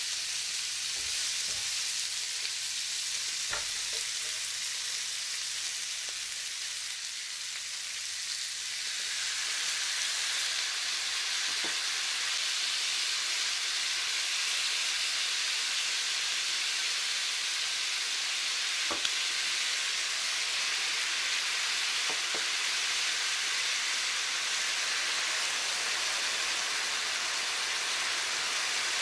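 Yakisoba frying in oil in a frying pan: pork, cabbage, green pepper and noodles sizzling steadily, the sizzle growing louder about nine seconds in. A few faint ticks come through the sizzle.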